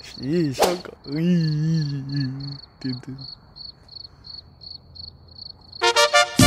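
A cricket chirping steadily with high, even chirps about three a second. Over it a person exclaims once and then makes a long drawn-out voiced sound, and music comes in near the end.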